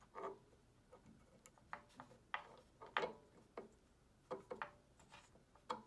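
Faint, irregular clicks and taps of a metal timing belt pulley being worked by hand onto a servo motor shaft, about a dozen small knocks spread unevenly.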